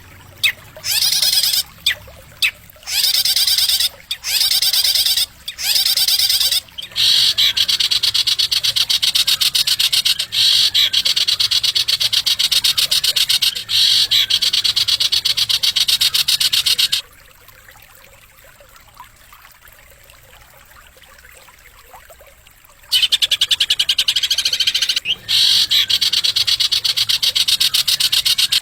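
A caged songbird singing a sharp, high, fast rattling trill used as a training song. It starts in short bursts, runs into a long unbroken trill of about ten seconds, stops for several seconds, then starts again.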